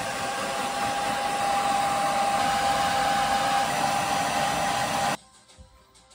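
Handheld hair dryer blowing: a steady rush of air with a steady whine in it, stopping abruptly about five seconds in.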